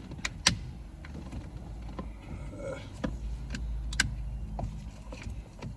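Scattered sharp clicks and knocks of plastic steering-column trim and clips being pried and handled, about eight in all, over a low steady rumble.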